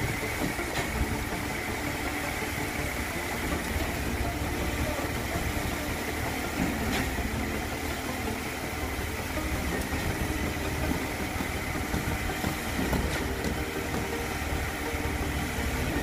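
Concrete pump engine running steadily while concrete is pumped through the delivery hose into column formwork, with a few sharp knocks.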